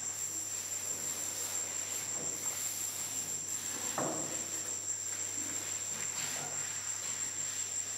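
Steady high-pitched trill of crickets over a low, steady hum, with a single sharp clink of a utensil against a dish about four seconds in.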